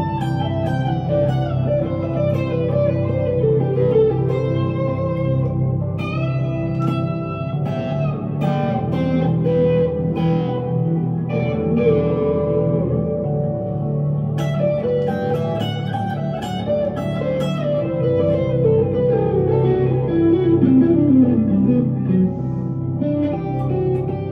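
1965 Fender Stratocaster electric guitar played through a 100-watt amp with delay and reverb pedals: an improvised lead line of single notes, some held, with a falling run of notes about 20 seconds in.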